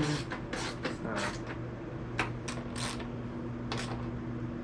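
Hand socket ratchet clicking in short, quick strokes, about two or three a second, as it drives small 8 mm bolts back in. A steady low hum runs underneath.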